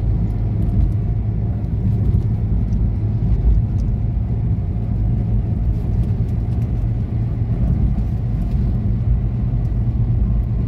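Cabin noise of a moving car: a steady low rumble of engine and tyres on an asphalt road, heard from inside the car.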